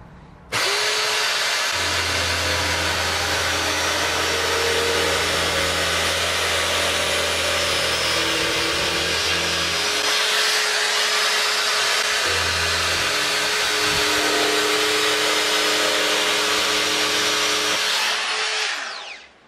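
Corded electric drill, fitted in a homemade wooden router base, running at full speed while its bit routes a groove along a pine board. It switches on sharply about half a second in and winds down with a falling whine near the end.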